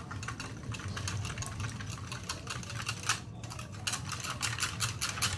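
Wire balloon whisk beating a runny egg-yolk, sugar and cornstarch mix in a stainless steel bowl, its wires clicking rapidly against the metal sides. The clicking gets faster after about four seconds.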